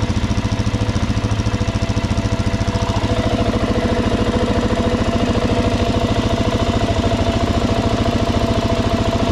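Suzuki DRZ400S single-cylinder four-stroke engine idling steadily with an even, rapid pulse.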